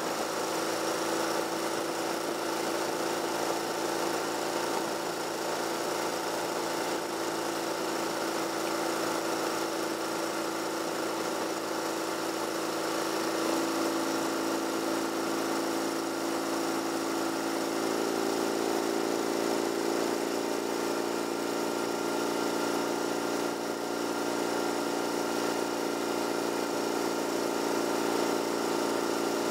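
A car's engine and tyre noise heard from inside the cabin while driving, steady, with the engine note stepping up a little about 13 seconds in.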